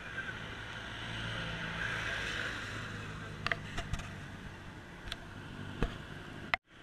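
Road and traffic noise heard from a moving bicycle: a steady rumble that swells about two seconds in, with a few light clicks and knocks from the bike. The sound drops out for a moment near the end.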